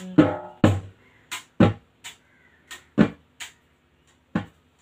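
Sparse percussion hits from the song's backing track, about nine separate strikes with quiet gaps between them, irregularly spaced, with no singing.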